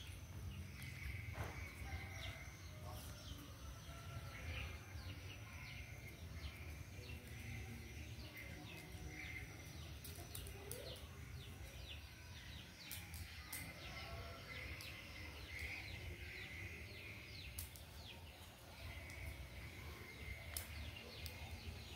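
Outdoor background with many short bird chirps over a steady low rumble.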